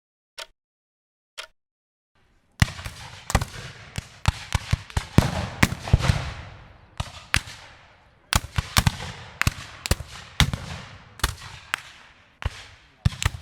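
Two last clock-tick sound effects about a second apart, then a brief pause and a fireworks sound effect: a rapid series of loud, sharp bangs, each trailing off in crackle.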